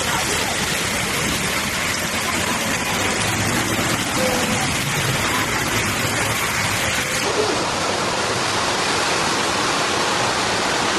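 Floodwater rushing steadily, an even roar of fast-flowing water with no break, changing slightly in character about seven seconds in.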